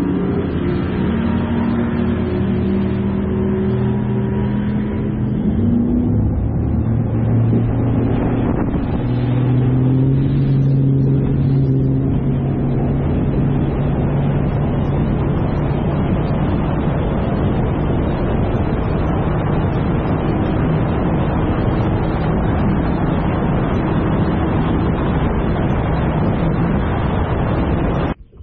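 Bass boat outboard motor running at speed, under a loud steady rush of wind and water spray. The engine note shifts in the first dozen seconds, then holds steady. The sound cuts off abruptly near the end.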